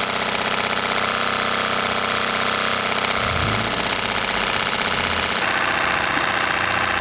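Luton Bowman PW202 overtype toy steam engine running steadily in live steam, a fast, even mechanical rhythm that runs smoothly and well balanced.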